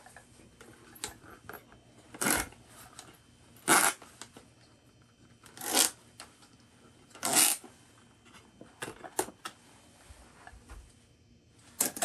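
Breathing inside an Ocean Reef full face mask: four loud, hissy breaths roughly every one and a half to two seconds. Then come a few small clicks and, near the end, a short sharp sound as the mask's quick release handle is pulled.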